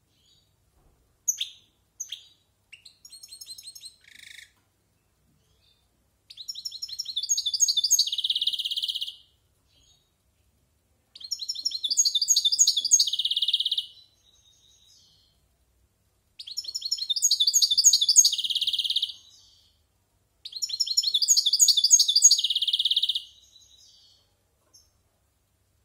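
A caged European goldfinch about a year old singing. A few short call notes come first, then four twittering song phrases of about three seconds each, each ending in a harsh rasping note.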